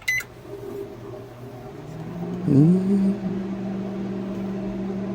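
Microwave oven keypad beeping once, then the oven starting up and running with a steady electrical hum, its interlock bypassed so that it runs with the door open. About two and a half seconds in, a brief loud swooping tone cuts across the hum.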